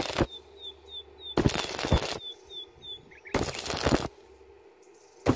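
Stick-welding arc on thin steel tubing, crackling and spitting in short bursts under a second long with pauses between, the electrode arc struck and broken again and again. This stop-start welding keeps the thin metal from burning through.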